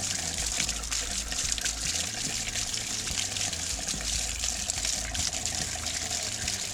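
Water gushing steadily out of the anode rod opening of a Suburban RV water heater as the tank drains, with a constant splashing.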